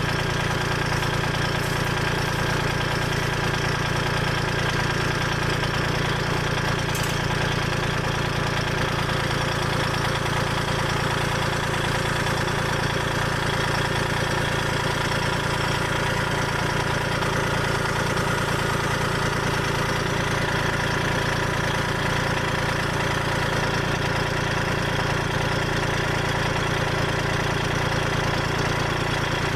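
Kubota L2501 tractor's three-cylinder diesel engine running steadily at a constant speed.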